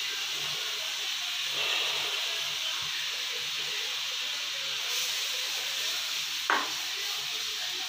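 Water boiling with a steady hiss in a non-stick kadai on a gas stove, while a wooden spatula stirs in gram flour being sprinkled into it.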